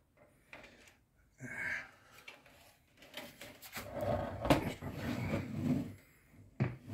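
Handling noise from a metal PC tower and its fitted radiator: rustling, scraping and light knocks as hands grip and move the case. There is a short burst about a second and a half in, and a longer, louder stretch in the second half.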